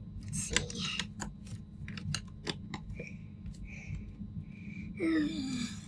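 Clicks and taps of plastic laptop casing parts being handled and pried loose by gloved hands, with a few short squeaks in the middle. A brief low voiced grunt, falling in pitch, near the end.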